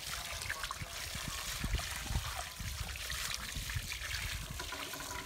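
Water jetting from a rubber hose onto a soaked, muddy rug laid on concrete, splashing steadily as it flushes the mud off.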